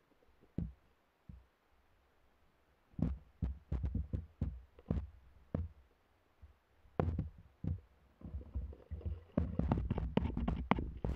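Dull, muffled knocks and thumps picked up underwater by an action camera's housing beneath the ice, a few at first, then irregular ones from about three seconds in, growing busier with a low churning wash near the end.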